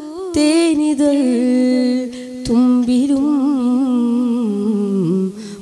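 A boy singing a Malayalam Islamic song solo into a microphone, holding long notes with wavering ornaments on them.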